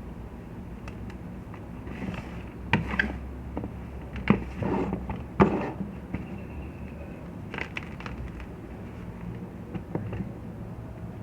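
Block of gym chalk being crushed, giving crisp crunches and crumbling: three loud cracks in the first half, then scattered smaller crackles, over a steady low hum.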